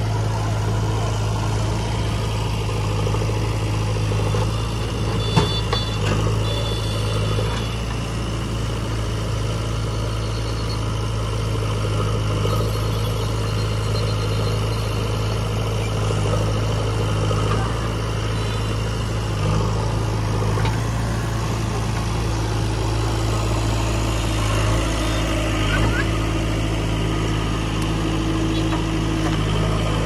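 Diesel engines of a JCB 3DX backhoe loader and a Sonalika DI tractor running steadily with a constant low hum, with one short knock about five seconds in.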